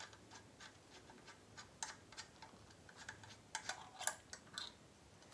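Faint, irregular light clicking as a trumpet's valves are handled and worked by hand, a few clicks a second, the loudest about four seconds in.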